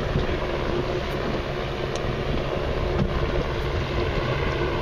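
A boat motor idling steadily, with wind buffeting the microphone.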